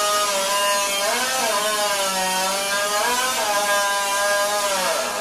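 Two-stroke chainsaw running at high revs and cutting wood. Its pitch sags under load about a second in, again around three seconds, and drops deeply near the end.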